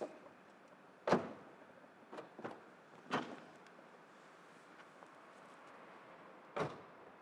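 Infiniti car doors opening and shutting as two people get in. The loudest thud comes about a second in, then lighter knocks, another thud around three seconds in, and a last door thud near the end.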